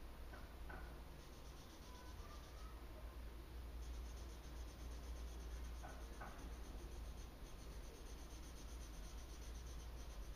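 A drawing tool scratching across sketchbook paper in quick, repeated shading strokes, starting about a second in and pausing briefly near three seconds, over a faint low hum.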